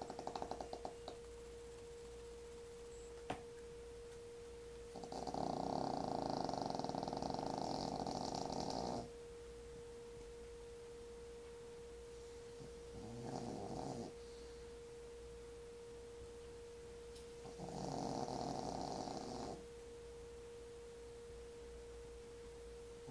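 A sleeping pet snoring in separate bouts: a long snore about five seconds in lasting some four seconds, a short one around thirteen seconds, and another around eighteen seconds. A steady faint hum runs underneath.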